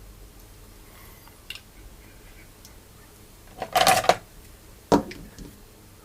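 Small hand tool working on a Cherry MX keyboard switch to destroy its contact assembly: a few light clicks, a short crunching scrape about four seconds in, then one sharp snap about a second later.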